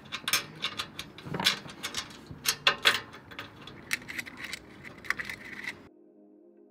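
Small metal hardware clicking and clinking as spring washers and nuts are fitted by hand onto the U-bolts clamping a steel roof rack basket, a quick irregular run of sharp clicks. About six seconds in it gives way abruptly to soft background music.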